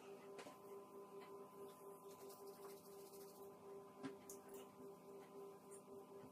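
Near silence: a faint steady hum of room tone, with a few soft ticks.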